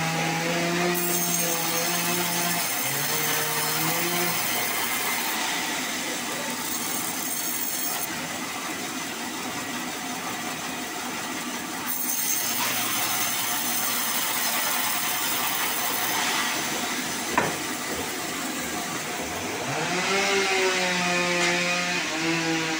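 Band sawmill cutting a sonokeling (Indian rosewood) log into planks: the machine's steady hum with the hiss of the blade through the wood, and one sharp knock about three quarters of the way through.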